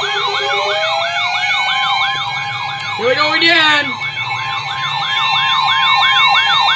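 Electronic sirens sounding together: one yelping up and down about twice a second over steady held tones, with a brief louder sweep about three seconds in.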